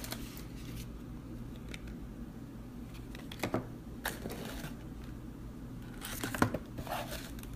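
Light handling of boxed makeup: small cardboard boxes lifted out of a shipping box and set down, and a brush in a plastic sleeve picked up, giving a few short rustles and knocks, the sharpest about six seconds in. A faint steady hum sits underneath.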